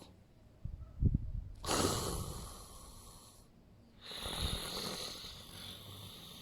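A person snoring: twice, a low rattling snort followed by a long hissing breath, about three seconds apart.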